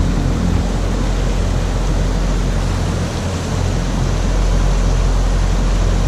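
Small waterfall pouring into a rock pool in a mountain stream: a steady, loud rushing of water with a heavy low rumble underneath.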